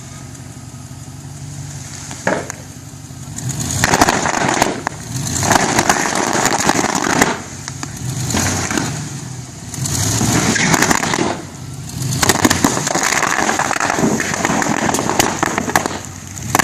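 Bubble wrap popping under the tyres of a 4x4 truck crawling over it in four-wheel low: a single sharp pop a couple of seconds in, then dense runs of popping that come in bursts of a second or two, over the engine's low idle.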